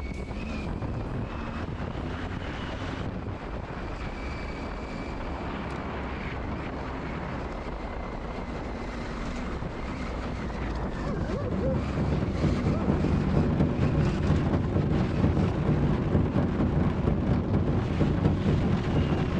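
Adventure motorcycle running along a gravel road, its engine rumble mixed with wind on the helmet microphone and tyre noise over the gravel. About two-thirds of the way through the engine gets louder as the bike accelerates.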